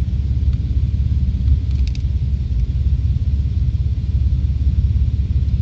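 Steady low rumble of a vehicle's engine running, with a couple of faint clicks about two seconds in.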